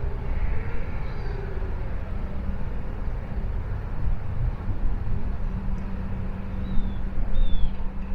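Outdoor waterfront ambience dominated by a steady low rumble. A faint steady hum joins about five seconds in, and two short, high, falling notes sound near the end.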